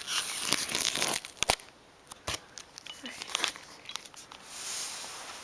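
Scissors slicing through the packing tape on a cardboard box: scraping, tearing noise with a few short clicks in the middle, then tape and cardboard rustling near the end.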